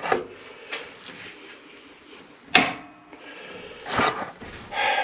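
A few short, sharp clicks and knocks of hard parts being handled, the loudest about two and a half seconds in and another about a second later.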